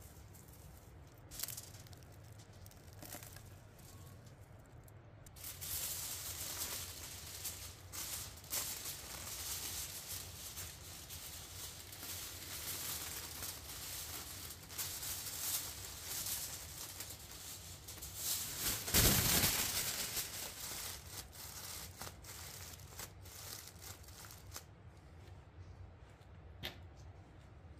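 Aluminium foil crinkling and crumpling as it is folded and pressed tightly around a beef shank, starting about five seconds in and loudest about two-thirds of the way through. Before that only a few faint clicks.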